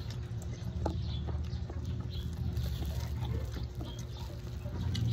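Small, scattered clicks and crinkles from fingers handling plastic-wrapped jackfruit bulbs, over a steady low hum.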